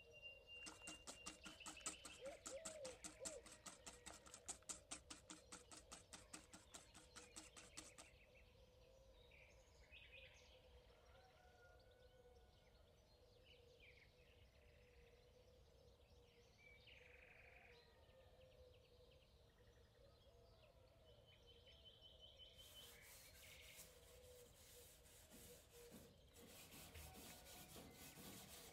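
Faint small birds chirping, with a fast, rhythmic scraping or rubbing for the first several seconds that stops, then starts again near the end.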